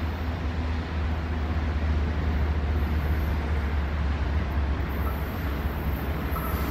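BNSF diesel freight locomotives working under power as they come out of a tunnel and approach: a steady deep engine rumble with track noise over it.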